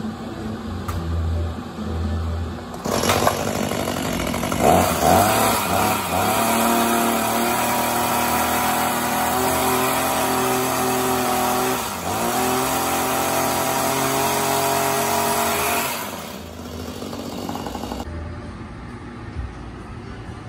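Maruyama hedge trimmer's small two-stroke engine idling, then revved up about three seconds in and held at high speed for about thirteen seconds, with a brief dip near the middle, before dropping back to idle.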